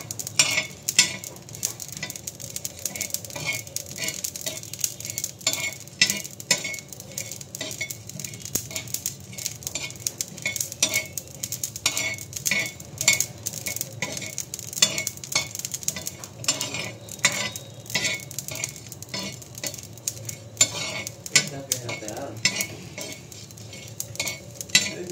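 Metal spoon stirring and scraping whole spices (coriander seeds, ajwain, black pepper, cloves and cinnamon sticks) as they dry-roast on a flat tawa, giving an irregular run of clicks and scrapes over a light sizzle.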